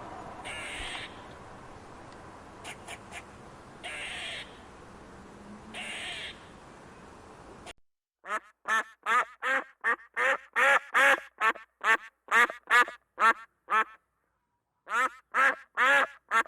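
A duck quacking in a rapid run of loud, evenly spaced quacks, about three a second, pausing for about a second near the end and then starting again. Before the quacking, for about the first half, there is a hissy background with three short calls.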